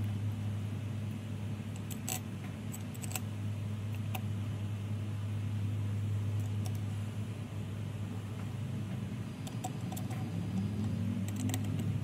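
Scattered light metallic clicks and taps as small screws and an Allen key are picked up and turned into the lid plate of an aluminium box, over a steady low hum.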